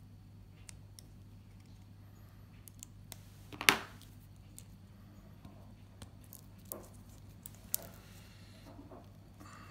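Heat-shrink tubing being cut and peeled off a small ESC circuit board by hand: faint crinkles and small clicks of plastic and wire handling, with one louder crackling scrape about a third of the way through. A steady low hum sits underneath.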